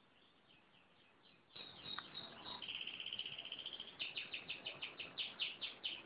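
Caged songbird singing: faint chirps at first, then about a second and a half in a loud burst of song, a held trilled note followed by a quick run of repeated high notes, about seven a second.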